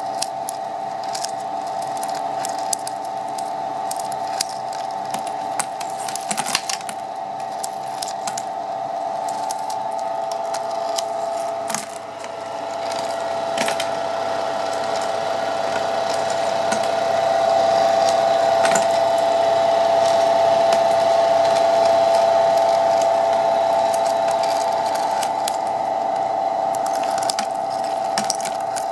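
Flake ice machine running: a steady mechanical hum from its Bitzer Type 1 open-drive refrigeration compressor, 750 W motor and ice-drum drive, louder for several seconds in the middle. Scattered light clicks and crackles run over the hum.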